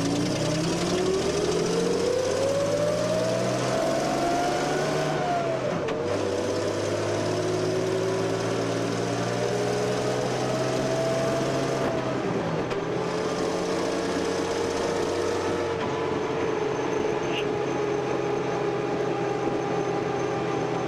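Daimler Ferret scout car's engine pulling away and accelerating through the gears. The engine note climbs, drops at a gear change about five seconds in, climbs again, drops at a second change about twelve seconds in, then rises and levels off.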